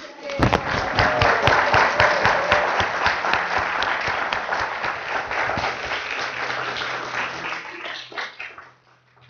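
A crowd of guests applauding, the clapping starting suddenly and tapering off about eight seconds in.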